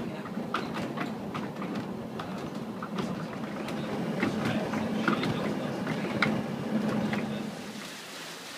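Watermill machinery running: wooden gear wheels and millstones turning with a steady low hum and irregular clattering knocks. Near the end it gives way to a steady rush of water.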